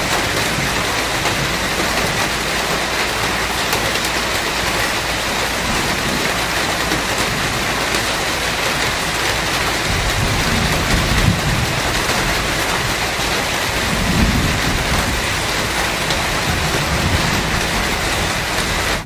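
Steady rain falling, with two low rolls of thunder about ten and fourteen seconds in.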